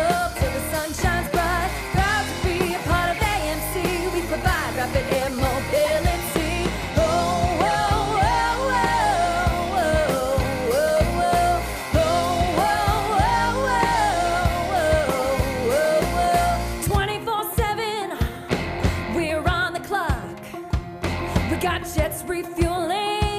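A song with a sung melody over a steady beat. About seventeen seconds in, the low beat drops out, leaving the voice and the higher parts, and it comes back near the end.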